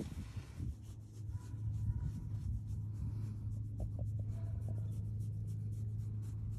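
A hand rubbing a Siberian husky puppy's belly fur: soft scratching and rustling with many small ticks, over a steady low hum.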